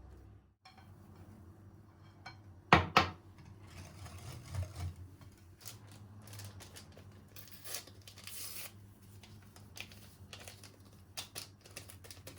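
Kitchen handling sounds: two sharp knocks about three seconds in, then scattered clicks and a stretch of rustling and crinkling near the middle, over a low steady hum.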